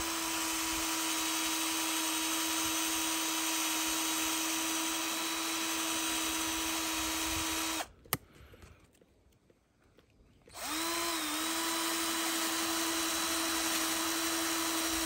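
A small motor running with a steady whine and hiss. It cuts out suddenly about eight seconds in and starts again some three seconds later, its pitch dipping briefly before settling back.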